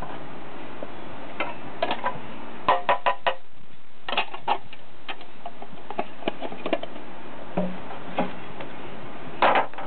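Irregular light clicks and clinks of small hard objects being handled, with a cluster about three seconds in and a louder one near the end, over a steady hiss.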